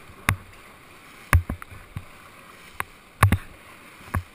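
Whitewater raft paddles stroking the water: a series of sharp, irregularly spaced splashing thumps, close to the microphone, over the steady rush of moving river water.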